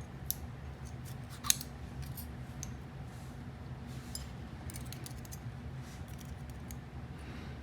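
Scattered small metallic clicks and taps from the pins, springs and tools of a disassembled pin-tumbler padlock being handled, the sharpest about a second and a half in, over a steady low hum.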